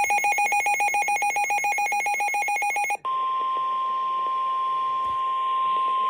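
An electronic emergency alert tone pulsing rapidly, ringing like a telephone, cuts off about three seconds in. It gives way to a single steady tone, the 1050 Hz warning alarm tone of NOAA Weather Radio, which signals that a warning message follows.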